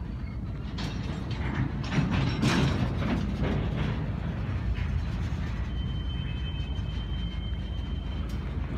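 Freight train of covered hopper cars rolling past: a steady low rumble of wheels on rail, with a cluster of clanks and knocks about one to three seconds in. A thin high wheel squeal starts about six seconds in.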